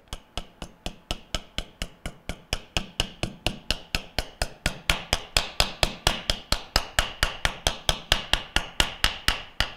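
Rapid, even hammer taps on the steel inner ring of a rubber motor mount, driving it onto the end bell of a Bell & Gossett Series 100 pump motor, about four to five taps a second. From about halfway the taps grow louder and take on a ringing tone: the tone change that tells the ring has reached the end bell.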